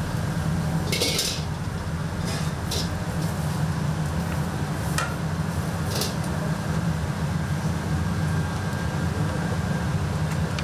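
Steady low hum of kitchen equipment with several sharp clanks of metal utensils against cookware.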